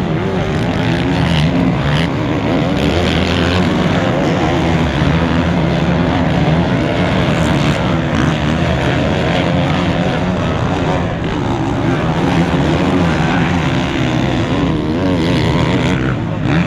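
Motocross motorcycle engines running hard, their pitch rising and falling continually as the throttle is worked.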